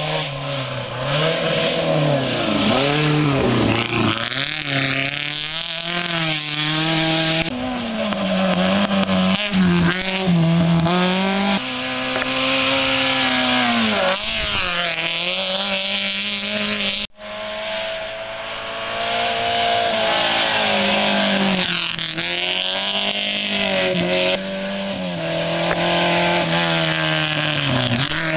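Rally cars driven flat out past the spot one after another on a loose dirt stage, engines revving high, dropping and rising again with each gear change and lift, over the rush of tyres on gravel. Several passes follow each other with abrupt jumps between them.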